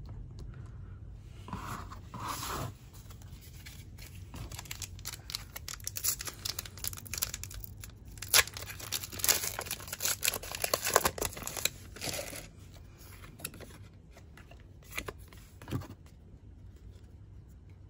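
A foil Pokémon TCG booster pack wrapper being torn open and crinkled by hand. It makes a run of crackling rips that are densest in the middle of the stretch, with quieter rustling of the wrapper and cards before and after.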